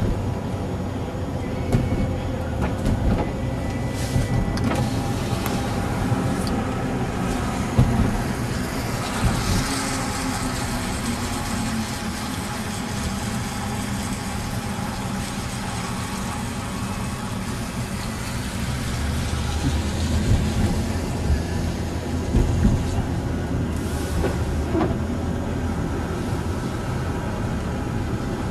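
Car driving, with steady road and engine noise heard from inside the cabin and a few light knocks.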